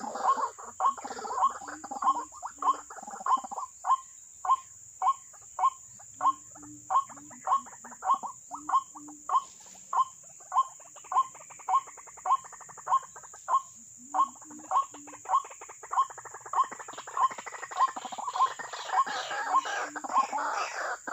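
White-breasted waterhens calling: a steady, evenly spaced series of short sharp calls about two a second, with lower notes in short runs. A fuller chorus of overlapping calls fills the first seconds and builds again over the last few.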